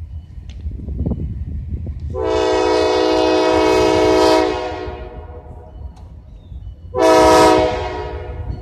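Diesel locomotive air horn blowing for a grade crossing: one long blast of about two seconds, then a short blast about three seconds later, part of the crossing signal. A low rumble runs underneath.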